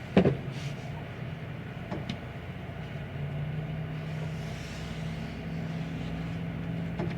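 Semi-truck engine and road noise heard inside the cab, a steady low drone, with a steadier engine tone settling in about three seconds in and a couple of light knocks.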